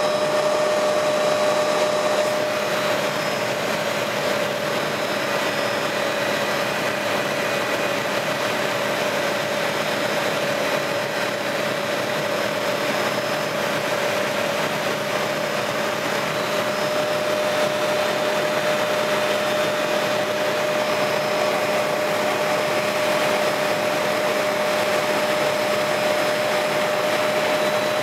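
Helicopter in flight heard from inside the cockpit: steady engine and rotor noise, a constant hum over an even rushing sound.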